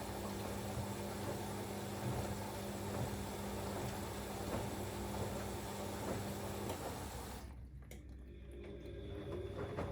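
Siemens Extraklasse XLS 140 A front-loading washing machine taking in water through its inlet valve at the start of the prewash, a steady hiss of water with a humming tone. The hum stops a little after halfway and the water hiss cuts off abruptly about three-quarters through, as the fill ends, leaving faint clicks and sloshing.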